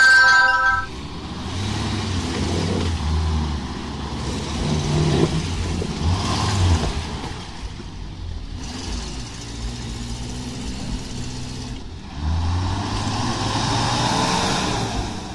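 Off-road 4x4 engines revving in repeated surges, three main pushes rising and falling in pitch, as a Suzuki Samurai stuck in deep mud is pulled out on a tow strap by another 4x4. A loud steady tone sounds at the very start and stops under a second in.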